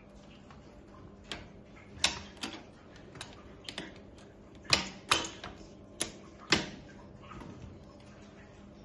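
A series of irregular sharp clicks and knocks, about a dozen, the loudest in a cluster near the middle: hard metal parts or tools being handled and tapped during e-bike headset and fork work.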